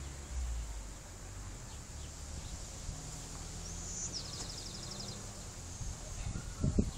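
Wind blowing through trees, with low rumbling gusts on the microphone. A bird gives a short rising note and a quick trill about four seconds in, and there are a few low knocks near the end.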